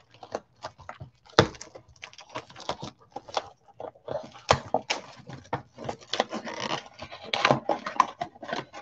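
Gloved hands handling and opening a cardboard trading-card box: a busy run of irregular clicks, taps and rustles of cardboard, with a few sharper ticks.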